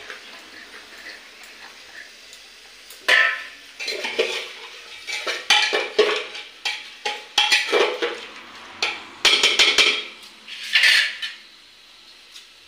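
Metal spoon scraping and knocking against a pressure cooker as chopped onions are stirred in oil, in a run of irregular scrapes and clanks that starts a few seconds in and dies away near the end.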